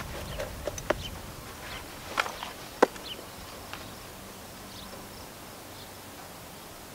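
Several sharp clicks and taps from handling binoculars and a chest harness as the binoculars are raised, the loudest near one second in and near three seconds in, then only faint outdoor background.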